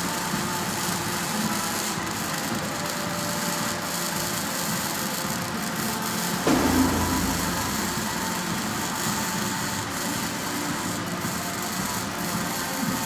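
Steady mechanical work-site noise, with a brief louder low thud about six and a half seconds in.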